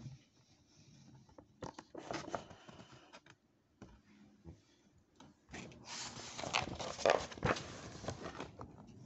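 Paper rustling and sliding as the pages of a large picture book are handled and turned, with a few small clicks early on and a denser stretch of rustling for about three seconds in the second half.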